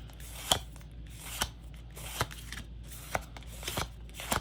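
Tarot cards being flipped through one at a time, each card giving a sharp snap or tap, about six in all at roughly one a second.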